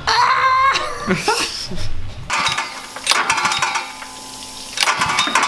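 Gasoline pressure washer being pull-started without the engine catching, its recoil starter and frame rattling in bouts. The machine has been winterized and needs a new spark plug. A short wavering tone comes first.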